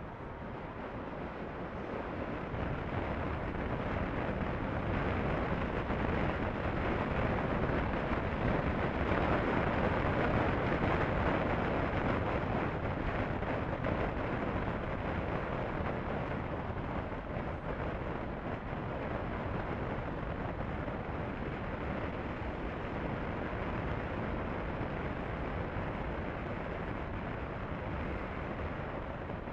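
Wind rushing over the microphone with motorcycle engine and tyre noise at highway speed on a Honda CB500F, growing louder over the first ten seconds or so, then easing a little.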